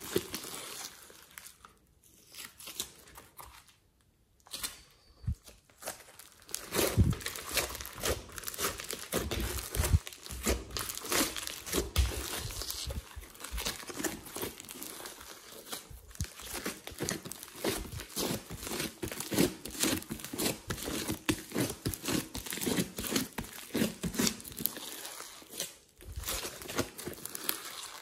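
Thick slime with clay mixed in being kneaded, squeezed and stretched by hand, giving dense crackling and sticky tearing clicks; it goes quieter for a couple of seconds near the start, then picks up again.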